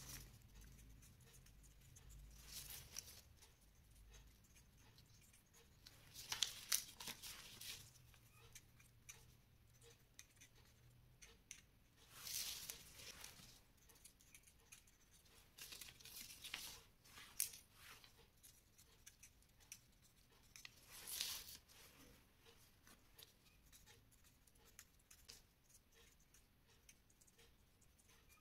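Faint felt-tip marker writing on folded paper: short scratchy strokes in bursts every few seconds, with near silence between them.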